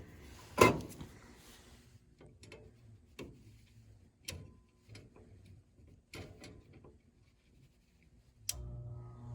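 Knocks and light clicks of metal furnace parts being handled. Near the end, the blower motor of an old Rheem gas furnace starts suddenly with a steady, rising hum.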